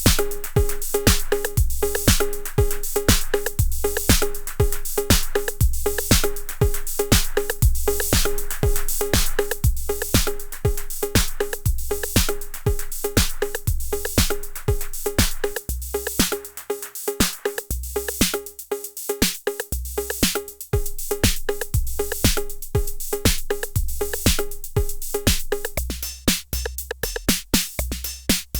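IK Multimedia UNO Drum, a hybrid analog/PCM drum machine, playing a programmed beat: a steady kick with fast hi-hat-like ticks and a pitched drum tone. The kick drops out for a few seconds about two-thirds through, and very rapid rolls come in near the end.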